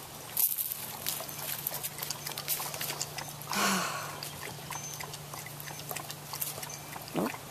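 Dog lapping water from a stainless steel bucket, a run of quick, irregular wet laps, with a brief louder rush of noise about three and a half seconds in.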